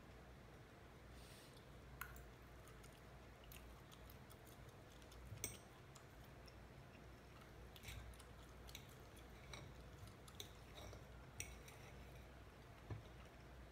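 Faint scattered clicks and taps of a metal fork against a ceramic plate as chicken is eaten, with quiet chewing, over a low steady room hum.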